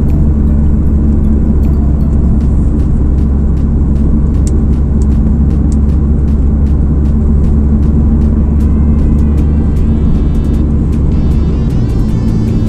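Car driving on a road, heard from inside the cabin: a steady low engine and road rumble with scattered light clicks and rattles.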